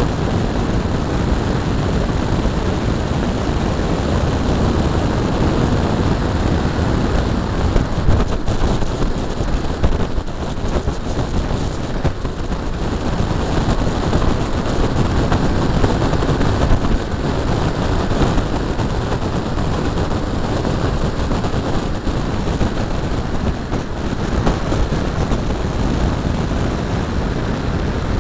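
Steady rush of wind and road noise on a bumper-mounted camera's microphone as a 1988 BMW 325is is driven at speed on a race track, the low rumble strongest and no engine note standing out.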